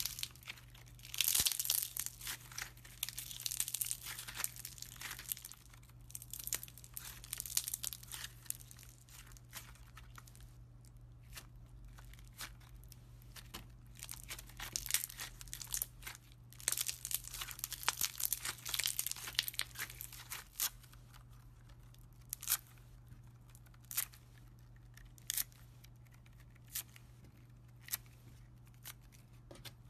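Slime being squeezed, stretched and torn apart by hand, making sticky crackling and tearing sounds. The crackle comes in dense runs, then gives way to separate sharp pops near the end as the slime is pulled into chunks, over a steady low hum.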